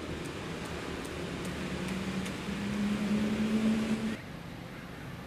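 A motor vehicle's engine running, its drone growing louder and rising slightly in pitch, then cut off abruptly about four seconds in.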